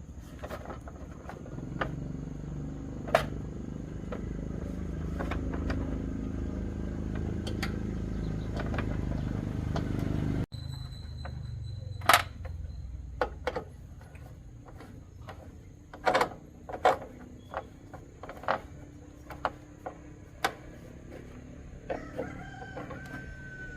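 A steady low hum with a few light taps, which cuts off abruptly about ten seconds in, followed by scattered sharp knocks and taps. A rooster crows briefly near the end.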